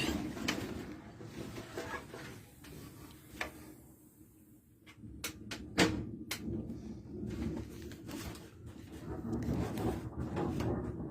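Distant thunder rumbling low and unevenly, building toward the end, with a few sharp clicks about halfway through.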